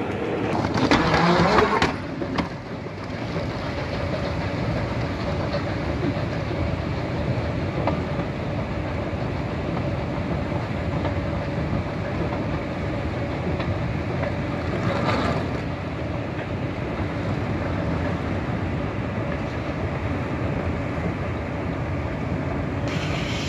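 Moving walkway running with a steady rumbling hum and a faint steady tone through it, louder for the first couple of seconds.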